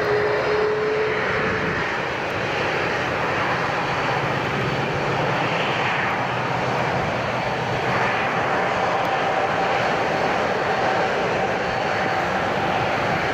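Boeing 767 airliner's twin jet engines running at low power as it taxis on the ground. The rushing sound stays steady, with a faint engine whine in it that changes pitch partway through.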